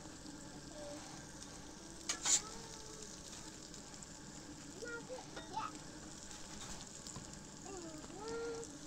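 Food sizzling steadily on a 36-inch Blackstone flat-top griddle, with a short knock about two seconds in.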